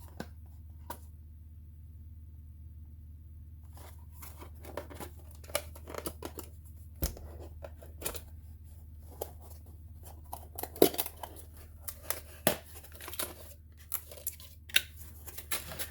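Cardboard and plastic packaging being opened and handled: irregular tearing, crinkling and sharp clicks that start about four seconds in and grow more frequent, with a few louder snaps near the end.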